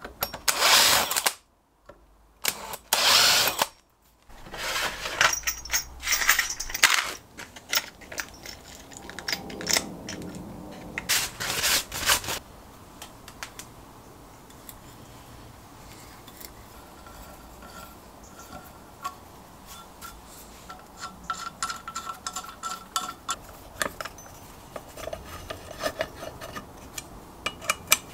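A power drill running in short loud bursts, boring and countersinking holes in a steel plate held in a vise. After about twelve seconds the drilling stops and gives way to quieter clicks and scraping as a hand tap in a tap wrench cuts threads in the holes.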